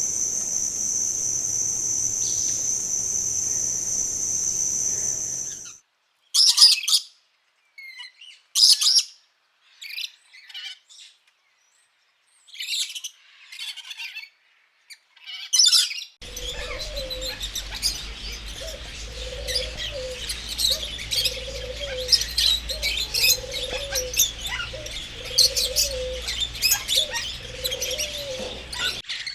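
A steady high buzz of insects for the first few seconds, cutting off abruptly to scattered bird chirps and calls with silence between them. About halfway in, a dense chorus of birds chirping begins, over a low note repeated about once a second.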